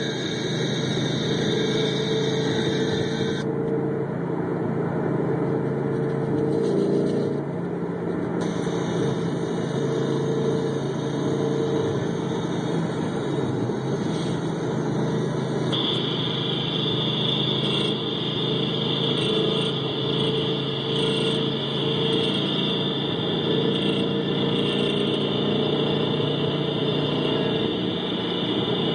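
2011 Ford Mustang GT's 5.0 L Coyote V8 running, heard close up through amplified microphones on the cylinder banks, with the knocking noise that the uploader suspects is piston slap. The tone changes abruptly a few times as the recording switches between microphones.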